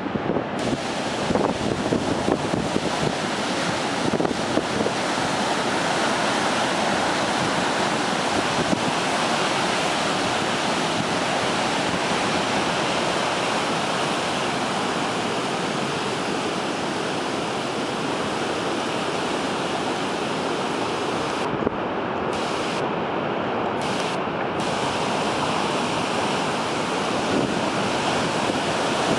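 Heavy storm surf of a hurricane high tide crashing and churning in a continuous roar, with strong wind buffeting the microphone in gusts over the first few seconds.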